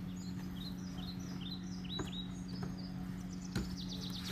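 Small songbirds chirping: a run of short, quick, upward-curling high notes, then a fast, rapid trill about three and a half seconds in. A steady low hum runs underneath.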